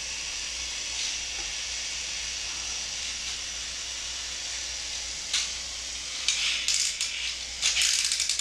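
Plastic toy train cars clicking and rattling in a child's hands, with a quick run of clicks near the end, over a steady hiss.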